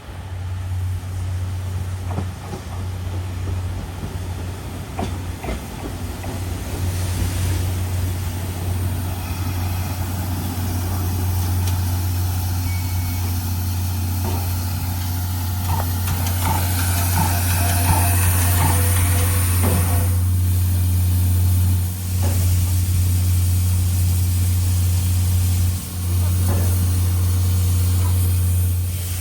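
Train standing with its engine idling: a steady low drone, with a stretch of hissing from air or steam about sixteen to twenty seconds in and a few faint knocks.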